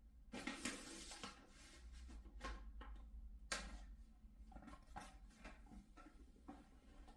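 Faint rustling and a handful of light, scattered clicks over a low steady hum.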